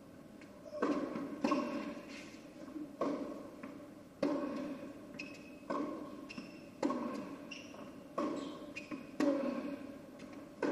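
Tennis rally on an indoor hard court: about eight sharp racket strikes and ball bounces, roughly one every second to second and a half, each followed by a short echo in the hall.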